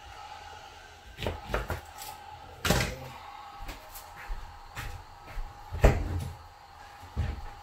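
Kitchen handling noise: a handful of separate sharp knocks and clatters, the loudest about three seconds in and again near six seconds, over a faint steady hum.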